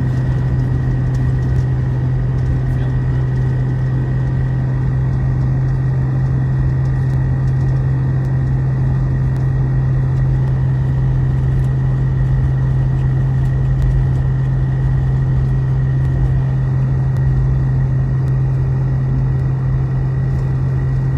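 A jeep's interior noise while driving at steady speed: an even engine and road drone with a strong steady low hum that does not change.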